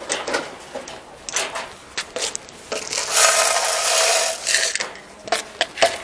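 Scrapes, knocks and rattles of rabbit cages and feeders being handled at feeding time, with a longer rushing rattle from about three seconds in.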